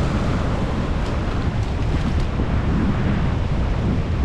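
Wind buffeting a head-mounted action camera's microphone as a steady low rumble, over the wash of ocean surf breaking on the rocks.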